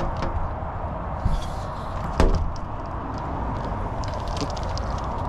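Rustling and light clicks as the mesh screen door and door frame of an Aliner A-frame camper are handled from inside, with one sharp knock about two seconds in.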